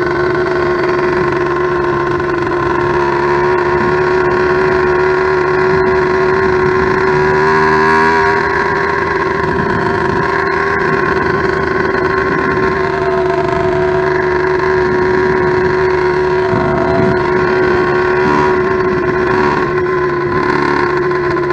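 Small two-stroke motorized-bicycle engine, an 89.7 cc steel-sleeve '100cc' kit, running steadily under way while being ridden gently during break-in. Its pitch holds mostly even, with a slight rise about eight seconds in.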